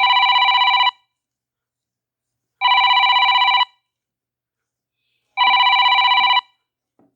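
A telephone ringing: three trilling rings, each about a second long, starting a little under three seconds apart.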